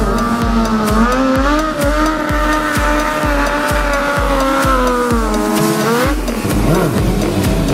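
Background music with a steady beat, about two thumps a second, over a sport bike's engine held high in the revs through a wheelie. The engine note stops abruptly about six seconds in.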